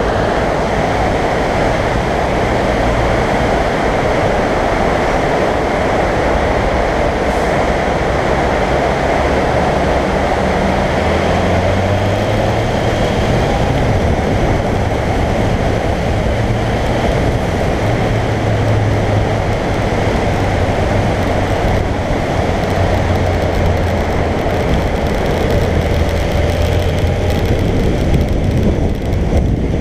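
Suzuki GSX1400 motorcycle under way on a wet road in a tunnel: a steady low engine drone under loud wind and tyre noise, the drone shifting about twelve seconds in.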